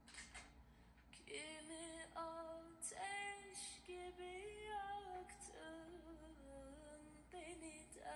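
A woman singing slow, drawn-out notes that glide between pitches, with music behind her.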